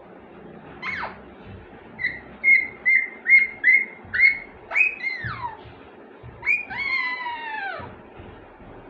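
Pet parrot giving a run of whistled calls: a quick sweep, a string of about six short chirps, then a falling whistle and a longer drawn-out falling call near the end.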